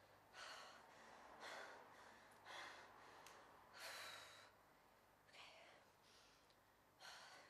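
A woman breathing heavily, with a gasping breath about once a second, the loudest about four seconds in.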